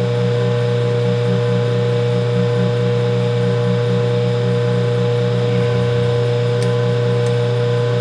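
Metal lathe running steadily, spinning a brass workpiece while a 1/16-inch drill bit is fed into its end: a constant motor hum with a steady higher tone over it.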